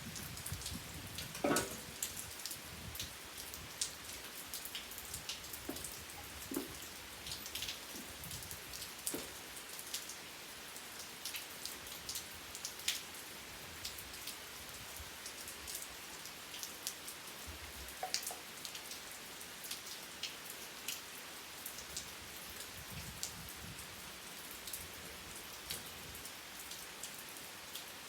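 Rain falling steadily, an even hiss with many individual drops striking sharply on a surface, one louder drop about a second and a half in.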